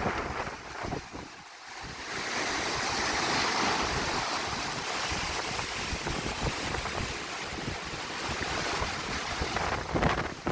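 Waves breaking and washing up a beach in strong wind, with gusts buffeting the microphone. The wash of surf swells in about two seconds in and holds, and the low wind rumble comes back near the end.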